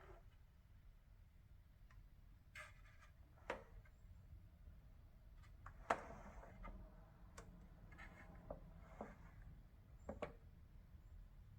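Faint, irregular clicks and light knocks over a low steady hum, about seven of them spread through the stretch, the sharpest about six seconds in.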